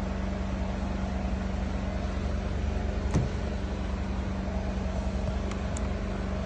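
Steady low background hum with an even noise, broken by one short click about three seconds in.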